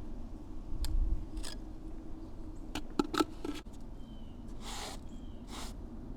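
A masonry trowel tapping and clicking against a brick a few times, then two short scrapes of the trowel through wet mortar near the end.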